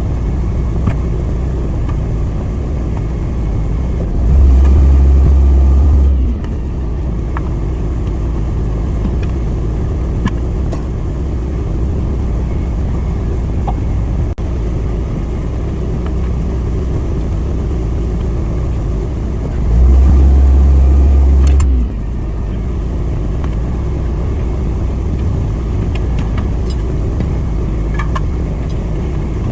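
A motor running steadily with a low drone, which surges louder and deeper for about two seconds twice: about four seconds in and about twenty seconds in. A few faint clicks of handled tools or parts.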